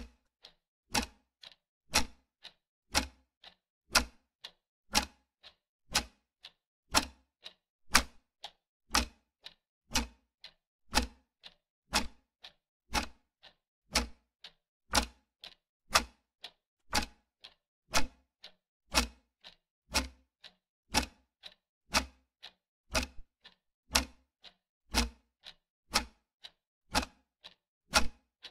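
Clock-ticking sound effect for a quiz countdown timer: an even tick-tock, a stronger tick on every second with a weaker one halfway between.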